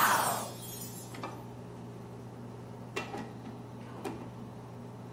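Aluminium military mess tin over a gas burner, steaming food on its inner lid above boiling red bean porridge. A hiss of steam fades out in the first half second, then the lids are set in place with light metal clicks about a second, three and four seconds in, over a low steady hum.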